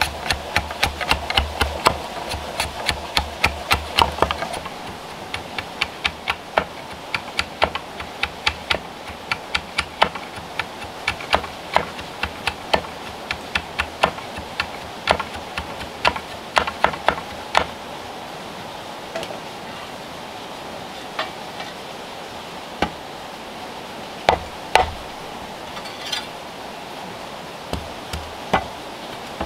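Wooden handle being knocked into a hand-forged iron shovel's socket, a quick run of sharp wooden taps and knocks. They come about four a second at first, slow to about two a second, then thin out after about 17 seconds to single knocks every couple of seconds, over a steady hiss.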